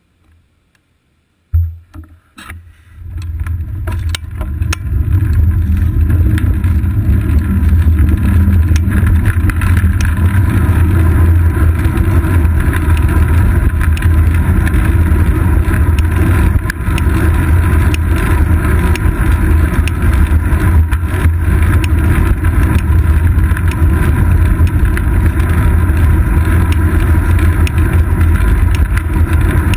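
Wind buffeting and road rumble picked up by a GoPro Hero 2 on a bicycle's seat post as the bike pulls away from a stop and rides on. A knock comes about one and a half seconds in, then the deep rushing noise builds over a few seconds and holds steady and loud.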